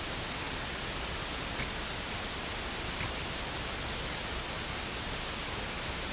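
Steady hiss of static with nothing else in it: an SJCAM SJ7 Star action camera's audio track recording only noise instead of sound, a fault that a firmware update has not cured.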